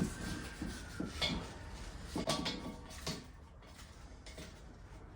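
A handful of light knocks and clinks of hard objects being handled, spread over the first three seconds, then quieter.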